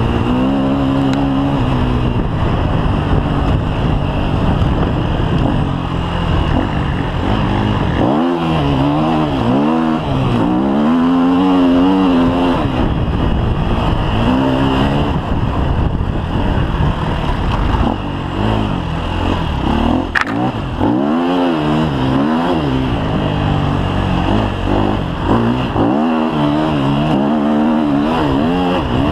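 KTM EXC 250 F's single-cylinder four-stroke engine under way off-road, its revs climbing and dropping back again and again as the bike accelerates and slows along the trail.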